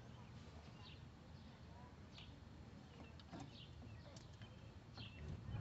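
Near silence: a faint low hum with scattered short chirps and light clicks.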